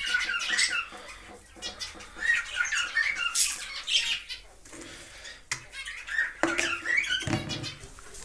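Small aviary parrots chattering and squawking, many short chirping calls overlapping. A few knocks and a dull thud come in the second half.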